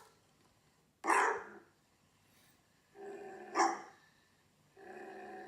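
Recorded dog barking, a downloaded MP3 sound effect played back on a computer as the test of a motion-alarm sound: two sharp barks, about a second in and about three and a half seconds in, then a longer, steadier sound begins near the end.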